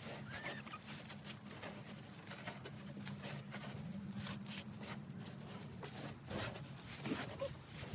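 Irregular rustling and scraping of loose pine shavings being pushed and raked out of a chicken coop, over a low steady hum.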